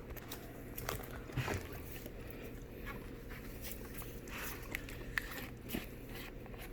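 Gallon plastic jug of cleaner being opened and handled: scattered faint clicks and rustles over a low steady hum.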